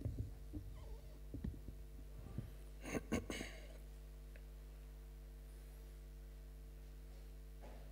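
Microphone handling noise: knocks and rubbing as the microphone on its stand is adjusted, loudest about three seconds in and stopping half a second later. After that only a steady low hum remains.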